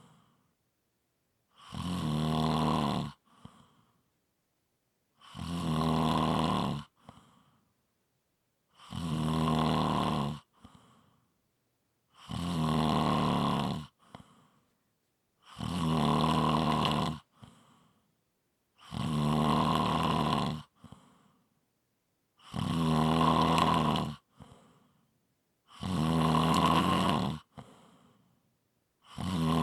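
A person snoring steadily and rhythmically: a low buzzing snore about every three and a half seconds, each lasting about a second and a half and followed by a short faint breath.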